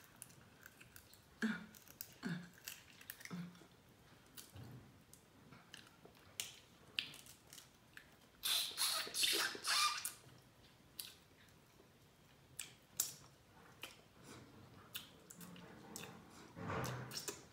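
Sauce-covered crab legs being cracked and snapped apart by hand, with short sharp cracks and wet sucking and chewing as the meat is eaten. A louder wet run of cracking and slurping comes about eight to ten seconds in.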